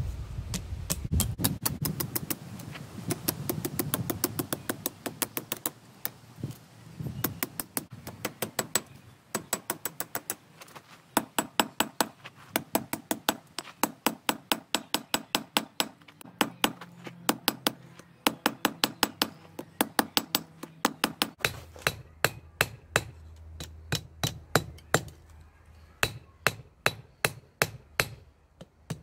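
Hand hammer striking red-hot steel held in tongs on an anvil: runs of sharp ringing blows, about three a second, broken by short pauses as the piece is turned and repositioned.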